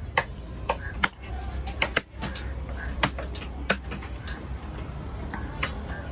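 A heavy, broad-bladed fish-cutting knife chopping through a fish head on a wooden log chopping block: about eight sharp chops at uneven intervals.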